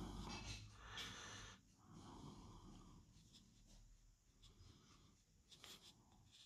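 Near silence: quiet room tone, with a faint rustle in the first second or so and a few soft ticks.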